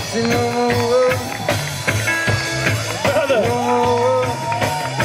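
Live band playing a reggae-rock jam: drum kit and bass keeping a steady groove under electric guitar, with long held melody notes that glide between pitches.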